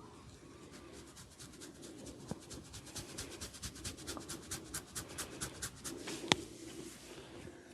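A barber's hands working on a head during a massage: a fast, even run of sharp snaps or taps, about seven a second, then one loud single crack.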